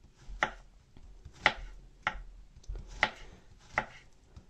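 Kitchen knife slicing a peeled banana into rounds, the blade knocking on a wooden cutting board about five times, roughly once a second.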